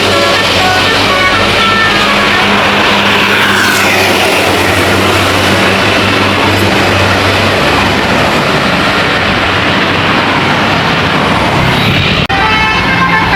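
Tour bus passing close by: loud engine and road noise with a steady low drone. A tune of short stepped notes sounds over it at the start, and again clearly after a sudden cut near the end.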